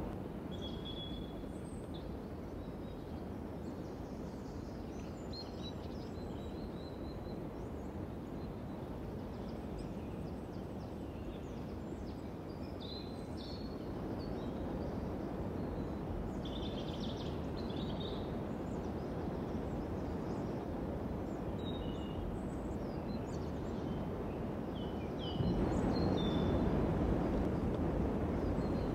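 Outdoor ambience: a steady low rumble with small birds chirping now and then. The rumble steps up in level about halfway through and again near the end.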